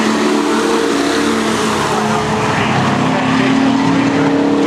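Engines of several race trucks running together in a pack: a steady drone of overlapping engine notes whose pitch drifts a little down and back up midway.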